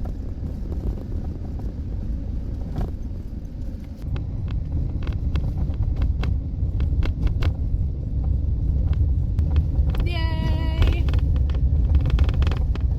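Minivan driving, heard from inside the cabin: a steady low road rumble with many small rattles and knocks. It gets louder about four seconds in. A brief wavering voice-like tone comes about ten seconds in.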